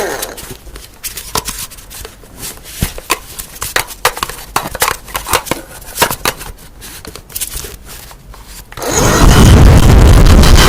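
Irregular light taps, clicks and scrapes of small objects being handled, some sharper than others. About nine seconds in, a loud steady whirring noise starts.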